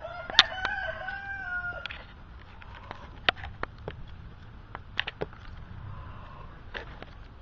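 A rooster crowing once, a long wavering call of about two seconds that drops at the end. Scattered sharp clicks sound throughout.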